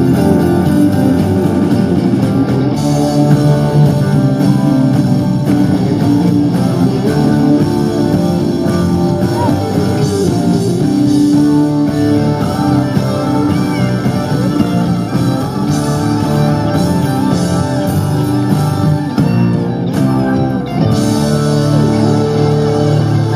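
Live blues-rock band playing, with electric guitars to the fore over bass guitar and drums.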